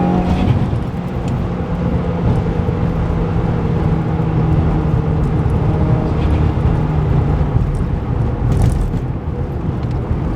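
Subaru WRX turbocharged flat-four engine running at a steady engine speed while the car drives, with a rushing noise over it. The tone fades somewhat in the last few seconds.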